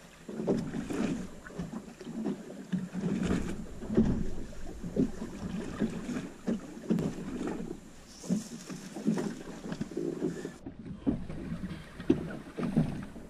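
Small waves slapping irregularly against the hull of a small boat drifting at sea.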